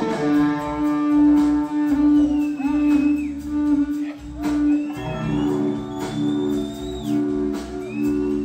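Live rock band: an electric guitar on a Fender Stratocaster through a Marshall amp plays long sustained lead notes, with a change to a new held note about five seconds in, over bass and drums.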